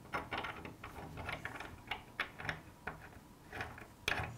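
Threaded steel conduit nipple being screwed by hand into the threaded spout of a metal stop-end box: a run of light, irregular metallic clicks and scrapes as the threads turn.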